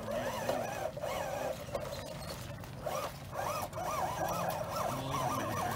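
RC rock crawler's electric motor and geared drivetrain whining, the pitch rising and falling in quick swoops as the throttle is worked on and off.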